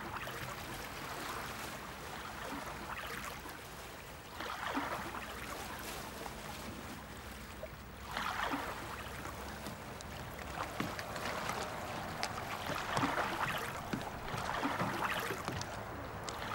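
Water lapping and splashing around a small rowboat as it is rowed, swelling every few seconds as the oars dip.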